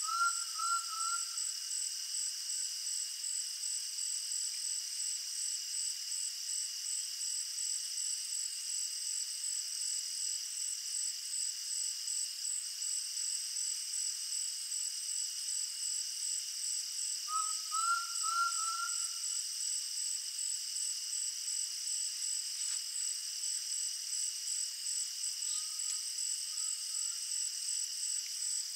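A steady, shrill insect chorus with an even fast pulse, over which a bird gives a short phrase of about four rising whistles right at the start. It repeats the phrase about two-thirds through and more faintly near the end: the song of the undulated tinamou (jaó).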